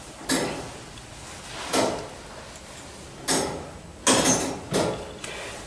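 Turret clock mechanism ticking: single sharp knocks about every one and a half seconds, with one extra knock between the last two.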